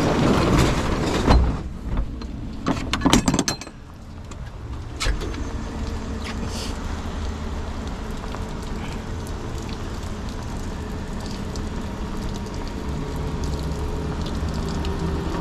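Several knocks and rattles of handling in the first few seconds, then a steady low mechanical hum with a faint hiss.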